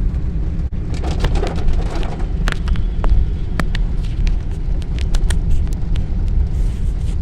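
Low, steady rumble of road traffic, with many short, sharp taps scattered through it.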